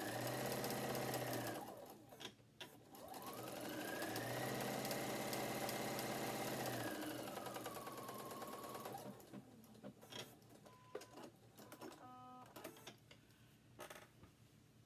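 Electric sewing machine stitching a quarter-inch seam in two runs, the motor whirring up to speed and stopping each time. The second run is longer and slows gradually before it stops. After that come a few small clicks.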